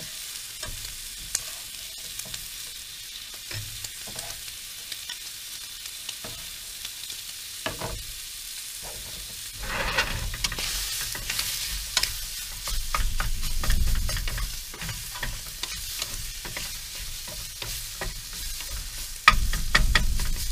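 Diced shallot and chopped sausage sizzling in a nonstick frying pan on a portable camp stove. About ten seconds in, the pan is shaken on the burner, and near the end a wooden spatula starts scraping and stirring.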